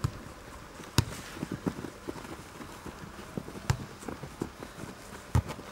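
Footballers' boots running on grass, with a few sharp thuds of the football being kicked, the loudest about a second in and near the end.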